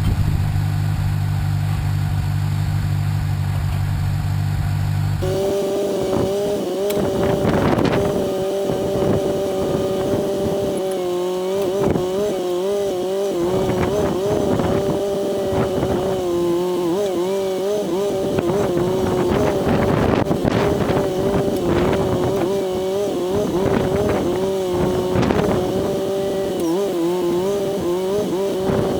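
Homemade backhoe's engine running while it digs. About five seconds in the pitch jumps higher, then it wavers and dips repeatedly as the hydraulics are worked, with scattered knocks throughout.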